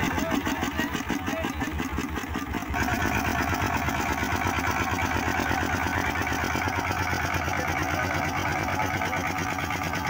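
A 25 hp Petter diesel boat engine running steadily, with a rapid, even knocking beat. It gets louder about three seconds in.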